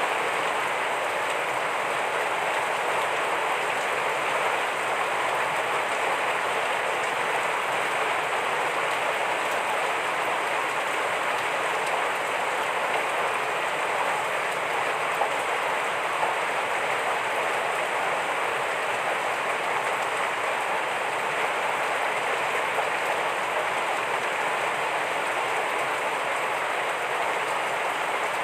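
Heavy rain falling steadily as an even, unbroken wash of noise.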